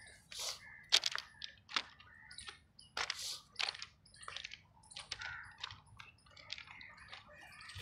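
Footsteps crunching on the loose stone ballast of a railway track, an uneven series of gravelly steps about one to two a second.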